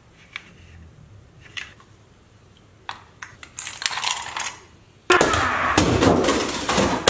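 Light metallic clicks and rattling of a car's steel scissor jack being cranked and pulled out by hand. About five seconds in, a sudden loud, rapid clatter of impacts starts and keeps going, and it is the loudest thing here.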